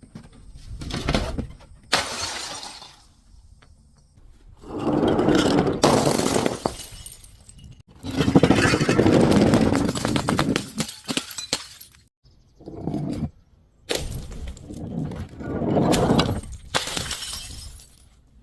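Glass bottles being crushed and shattering in a series of crunching bursts, each lasting one to three seconds with short pauses between. The longest burst, about eight seconds in, is a dense crackle of many small snaps.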